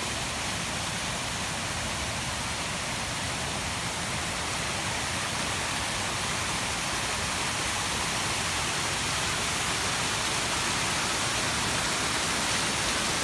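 Plaza fountain's rows of water jets spraying up and splashing back into the basin: a steady rush of falling water.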